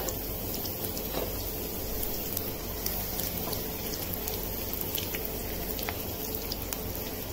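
Sliced onions, garlic and ginger sizzling in hot oil in a small pan, with many scattered crackles. A steel ladle stirs the pan partway through.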